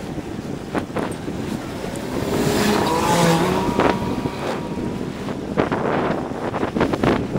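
Wind rushing over the microphone of a moving bicycle, with short knocks and rattles. A car passes, swelling up and fading between about two and three and a half seconds in.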